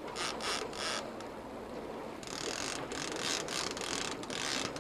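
Fishing reel ratcheting in rasping stretches as a hooked king salmon is played beside the boat: a short run in the first second, then a longer one from about two seconds in.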